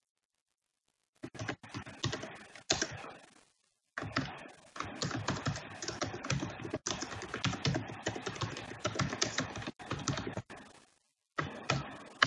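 Typing on a computer keyboard: quick runs of keystrokes that start about a second in, with two short pauses.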